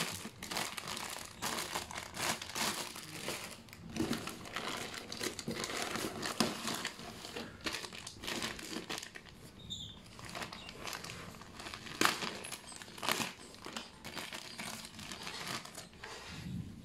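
Clear plastic toy packaging bags crinkling and rustling as they are handled, with irregular crackles and a few sharper ones past the middle.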